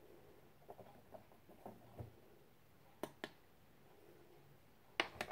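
Faint, light clicks and taps: a few soft taps in the first two seconds, two sharp clicks about three seconds in, and two more near the end.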